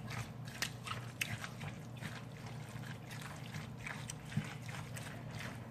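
A spoon stirring mayonnaise-dressed chicken salad in a container: an irregular run of wet squishes and light clicks.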